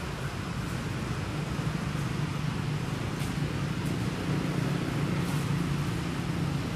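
A steady low mechanical hum, like an engine running, over a background hiss.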